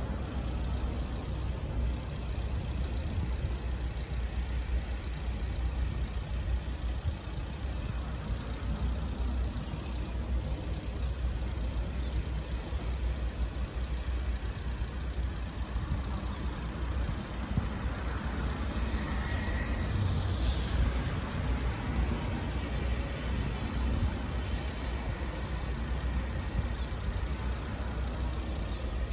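Steady hum of road traffic, cars passing on the road below, with one vehicle passing a little louder about twenty seconds in.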